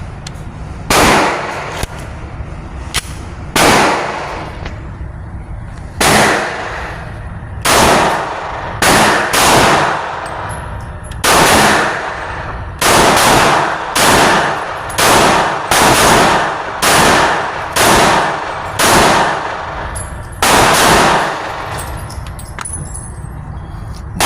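Glock 22 .40 S&W pistol fired in a string of about fifteen shots, irregularly spaced from half a second to two seconds apart, each sharp report followed by a short ringing tail.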